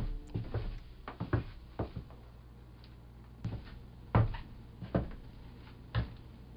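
A series of soft knocks and thuds at irregular intervals, like wooden things being bumped or handled, the loudest about four seconds in, over a low steady hum.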